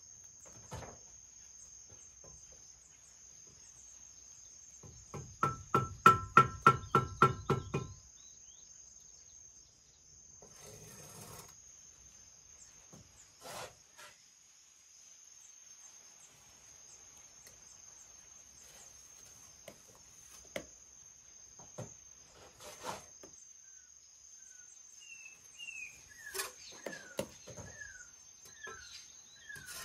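An insect's steady high-pitched buzz runs throughout. About five seconds in comes a rapid run of about twenty loud, evenly spaced taps lasting some three seconds, followed later by a few single knocks, and near the end short falling chirps of a bird.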